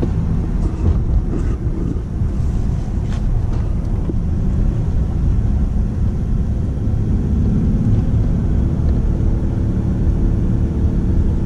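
Steady road and engine rumble inside a moving car's cabin. A steady low hum joins it about two-thirds of the way through.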